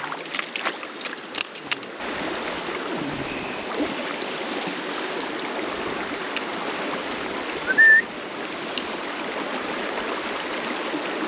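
Creek water running steadily over rocks, opening with about two seconds of splashing and small clicks at the water's surface as a trout is released from a landing net. A single short, high rising chirp about eight seconds in.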